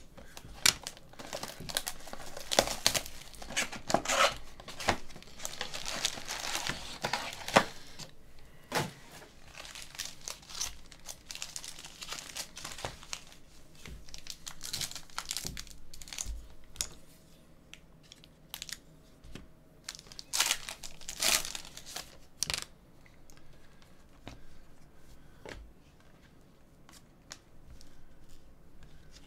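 Plastic shrink-wrap and foil trading-card packs crinkling and tearing as a hobby box is unwrapped and its packs are opened. The crackling is densest over the first several seconds, then comes in scattered sharp rustles, with a louder tear about three-quarters of the way through.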